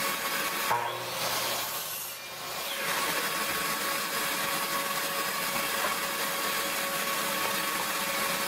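A motor running steadily with a constant whine over a rushing hiss, with a brief dip about two seconds in.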